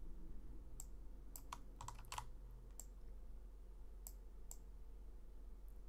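Faint, irregular clicking of a computer keyboard, a handful of clicks bunched around two seconds in, over a low steady hum.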